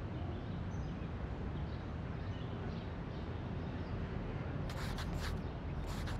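Steady room ambience with a low hum and faint bird chirps, then a pen scratching on notebook paper in a few quick strokes near the end, as an entry is written in a shop's credit ledger.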